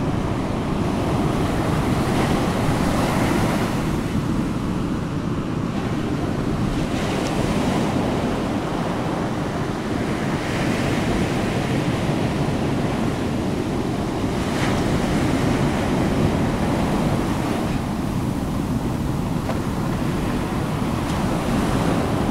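Steady rushing noise like surf, swelling and easing every few seconds.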